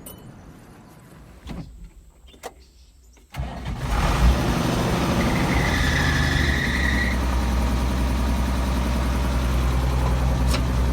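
Tractor engine starting up about three and a half seconds in, then running steadily at idle, with a brief high whine a couple of seconds after it starts.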